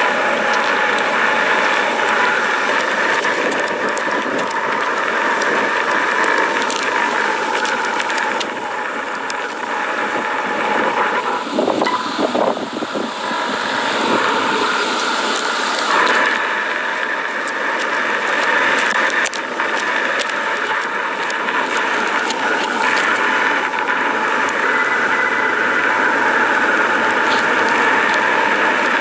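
Lava eruption noise: a loud, continuous rushing hiss with scattered crackles and pops, with a dip and a cluster of louder crackles about twelve seconds in.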